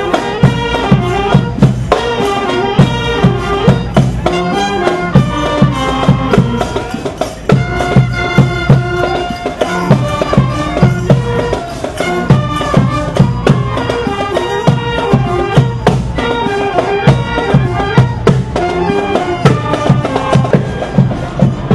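Marching band playing a tune on wind instruments over a steady drum beat of about two strikes a second.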